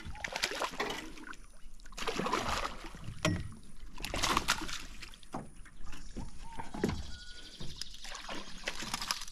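A hooked peacock bass thrashing and splashing at the water's surface beside the boat in several short bursts, with a few sharp knocks in between.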